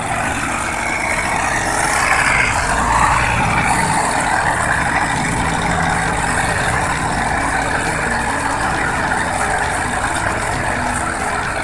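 Farm tractor engine running steadily under heavy load while towing an overloaded sugarcane trailer, heard with a continuous rushing noise.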